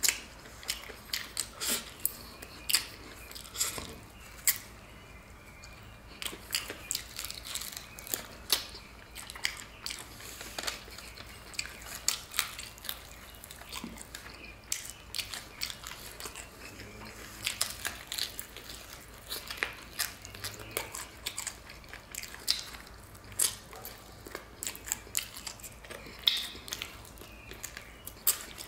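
Close-up eating of a battered fried turkey leg: chewing and biting, with many irregular sharp clicks and crunches as meat is pulled from the bone and eaten.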